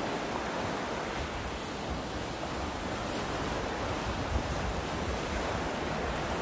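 Steady noise of big seas and the sailing catamaran's churning wake, with wind buffeting the microphone.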